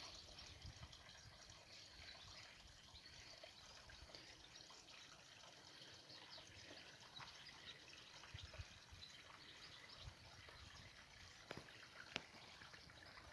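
Near silence: faint outdoor ambience, a soft even hiss with a few faint clicks near the end.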